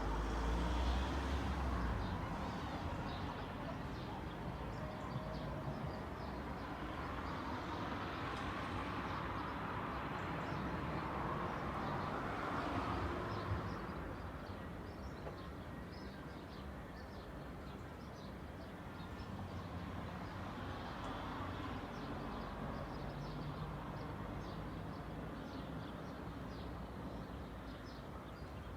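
Street ambience: cars passing one after another, their noise swelling and fading, loudest near the start and again about ten seconds in. Small birds chirp over it, more often in the second half.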